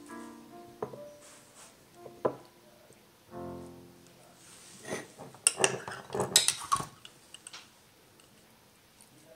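Soft piano background music, with a cluster of sharp clicks and clinks in the middle from a swing-top glass jar and a spoon being handled.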